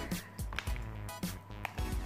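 Wet squelching of clear-glue slime being stirred with a spoon in a plastic measuring jug, a few irregular squishes, under background music.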